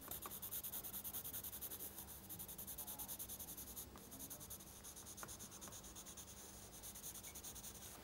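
Pencil shading on sketchbook paper: faint, rapid, even back-and-forth strokes, several a second.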